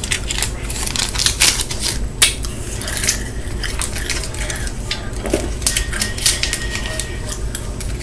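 Small plastic candy wrapper crinkling and crackling as it is torn open and worked in the fingers, in quick irregular crackles.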